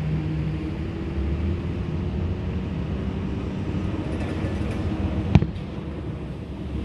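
A single firework shell bursting with a sharp bang about five seconds in, over a steady low mechanical hum like an engine.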